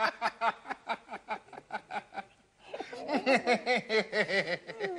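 Hearty male laughter in rapid, rhythmic bursts. It breaks off for a moment about two seconds in, then starts again.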